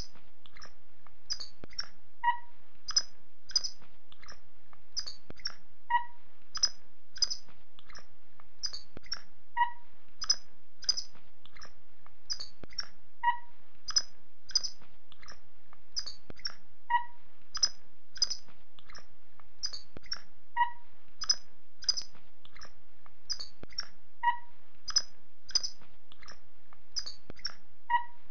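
Birds chirping in an evenly repeating pattern: short high chirps, often in pairs, with a lower two-note call coming back about every four seconds.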